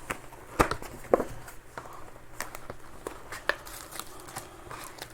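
A cardboard card box and its packs being handled on a table: two sharp knocks about half a second and a second in, then lighter clicks and rustles.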